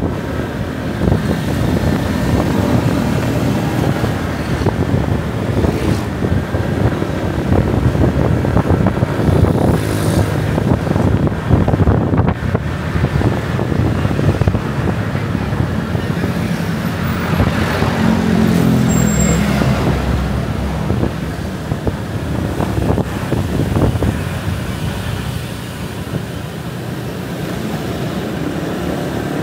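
Road and traffic noise heard from a motorcycle riding through city streets: a continuous engine and tyre rumble with cars and other vehicles around. About two-thirds of the way in, an engine swells up and falls away.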